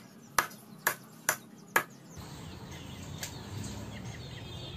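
A cleaver chopping a raw chicken on a wooden block: five sharp chops, about two a second, that stop about two seconds in.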